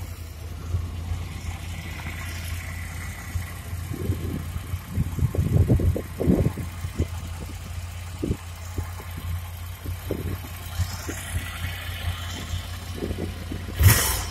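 Ducati Monster 797's air-cooled 803 cc L-twin engine idling with a steady low, uneven thrum. A short, louder rush of noise comes near the end.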